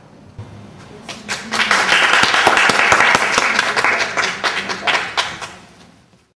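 A group of people clapping in applause, building up about a second in and fading out near the end.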